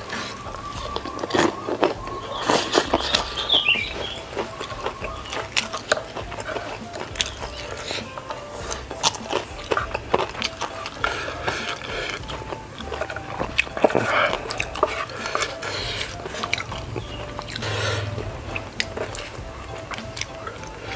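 Close-miked eating of stir-fried noodles: chewing and slurping, with many short wet mouth clicks.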